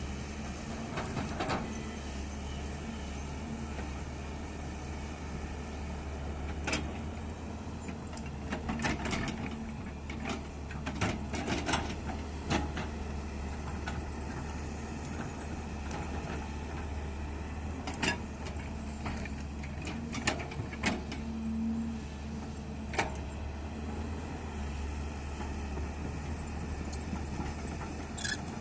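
Hyundai excavator's diesel engine running steadily, with sharp knocks and clanks from the machine's work scattered through it, several in quick succession about a third of the way in.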